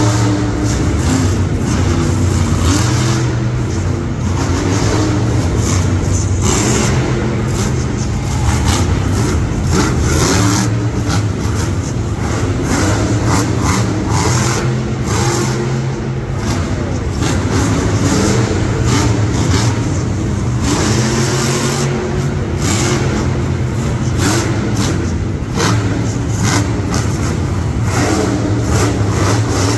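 A loud motorsport engine runs throughout, revving up and down repeatedly, with many sharp cracks over it.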